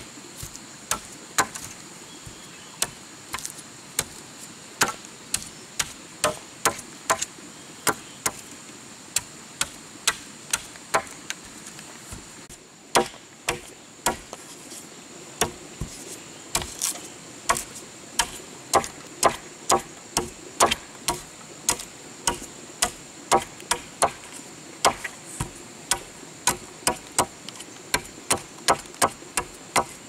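Repeated sharp knocks of a hand tool striking wood, about two a second and often in quick pairs, with a short pause about 12 seconds in, over a steady high-pitched drone.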